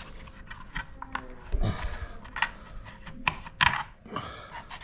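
Scattered clicks, taps and knocks of a hand tool, bolts and the engine bash plate being handled as the plate is unbolted and worked free from under the motorcycle, with a heavier knock about a second and a half in.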